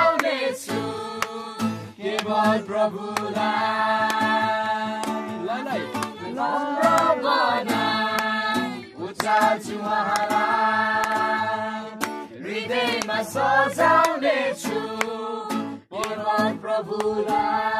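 A group of voices singing a hymn together in long held phrases, with an acoustic guitar strummed along.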